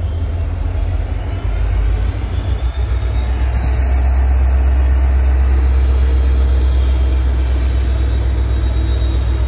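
Indian Railways electric locomotive running on the station track as it moves in to couple to the train: a loud steady low rumble with a faint high whine above it.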